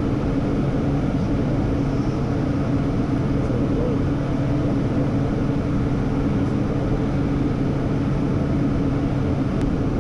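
Steady in-flight cockpit noise of a Hawker 800XP business jet: an even rush of air with a low, constant hum underneath.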